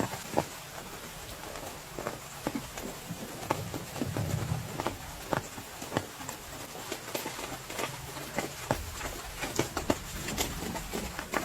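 Rain falling steadily, with a hiss and many irregular sharp taps of large drops striking close by.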